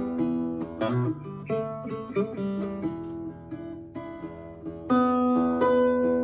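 A vintage early-1950s Norwegian Leif Hansson acoustic guitar is played solo, fingerpicking a blues of single notes over bass notes. The playing thins out and grows quieter in the middle, then a loud ringing chord comes in about five seconds in.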